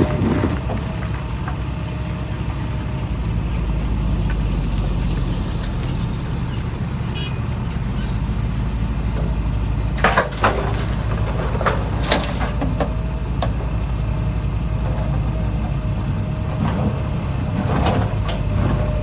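Heavy construction machinery running steadily, a deep engine drone with a faint steady whine over it, and a few sharp clanks about ten and twelve seconds in and again near the end.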